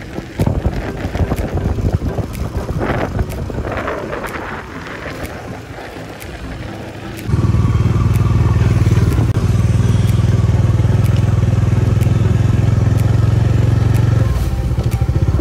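Scooter ride noise on a rough dirt track, uneven with knocks and rattles. About seven seconds in it cuts abruptly to a motorcycle engine running loud and steady under way, its low firing note close to the microphone, easing slightly near the end.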